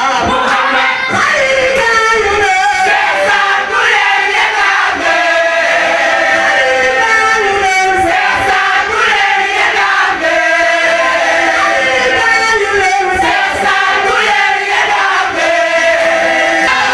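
A mixed choir of men and women singing a devotional chant together, with a lead voice on a microphone among them; the many voices slide between notes and keep going without a pause.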